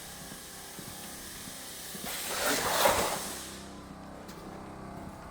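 Idling truck with a steady hiss of escaping air; a louder rushing sound swells and fades about two to three seconds in. The air leak is typical of the bad brake chamber the mechanic points to.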